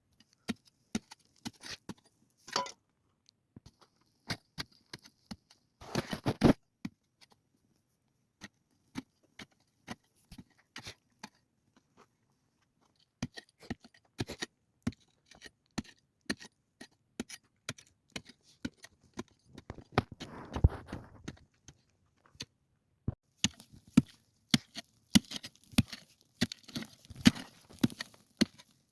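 Irregular sharp knocks and clicks of hand work on wood, coming thick and fast in the last few seconds.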